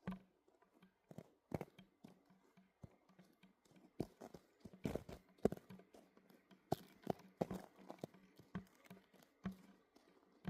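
Faint footsteps crunching on icy, frozen snow: an irregular series of short crunches, one or two a second, as someone walks carefully.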